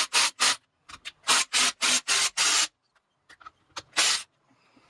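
A hand tool working a fastener loose on a McCulloch MAC 3516 chainsaw during teardown: runs of short rasping strokes, about four a second, with a last stroke near the end.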